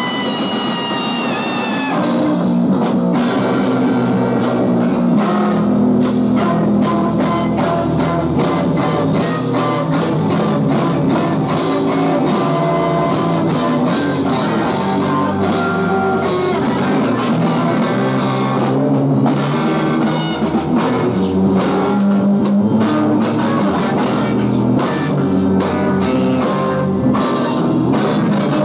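Live rock band playing on electric guitars and a drum kit. A held, slightly falling tone gives way about two seconds in to the full band with steady drum hits.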